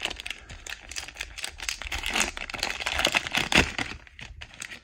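Panini Contenders trading-card pack wrapper crinkling and crackling as it is torn open by hand. The crinkling is dense and thins out near the end.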